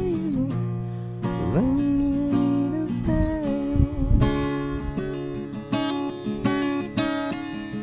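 Acoustic guitar being played, chords strummed and plucked in a steady rhythm.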